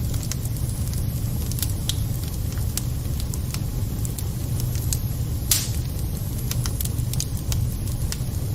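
Wood fire burning in a fireplace: a steady low rumble with scattered sharp crackles, and one louder pop about five and a half seconds in.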